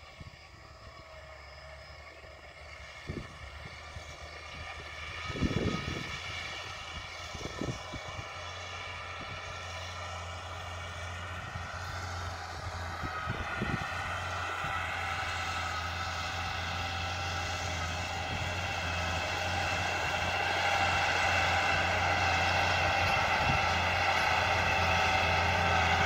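Massey Ferguson 3080 tractor's diesel engine pulling a disc plough, its steady drone growing louder as it draws nearer. A few dull knocks sound in the first half.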